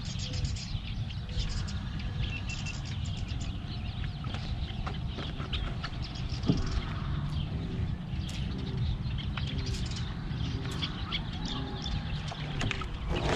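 Birds calling from the marsh: short high chirps and, in the second half, a run of short repeated notes about two a second, over a steady low rumble, with scattered small clicks.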